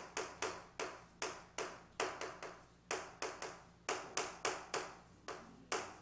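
Chalk writing on a chalkboard: a quick, uneven run of sharp taps, about three a second, each with a short scratchy drag as the stroke is drawn.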